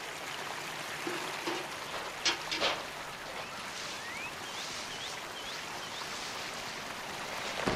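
Steady rushing hiss of flowing water, like a pipe outflow pouring into a pond. A few faint short high chirps come in the middle, likely small bird calls.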